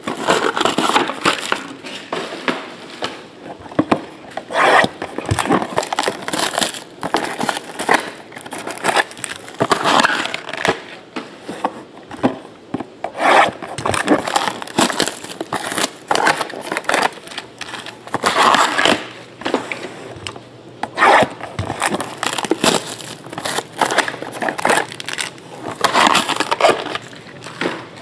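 Hands unwrapping and handling shrink-wrapped cardboard trading-card pack boxes: crinkling plastic wrap and cardboard rubbing and scraping in irregular bursts.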